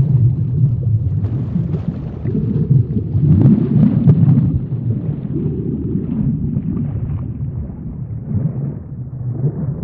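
Underwater ambience: a loud, steady, low rumble of water noise that swells and eases irregularly.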